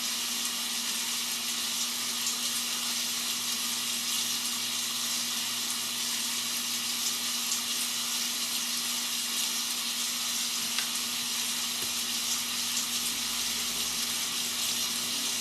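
Rain sound effect: a steady, even hiss of falling rain, with a faint steady hum underneath.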